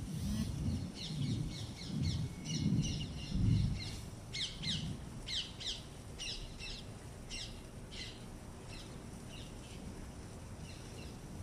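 Small birds chirping in quick runs of short, high calls that thin out toward the end, with low gusts of wind buffeting the microphone during the first four seconds.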